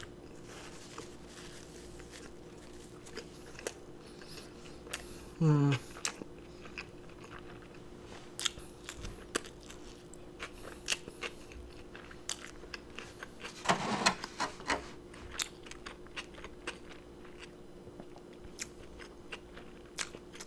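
Close-miked mouth sounds of a person chewing a cheeseburger: many small wet clicks and smacks. A short hum comes about five seconds in, and another brief vocal sound about two-thirds of the way through.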